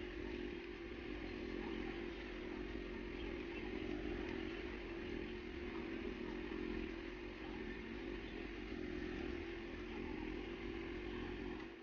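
Steady background drone with a constant low hum and hiss, unchanging throughout.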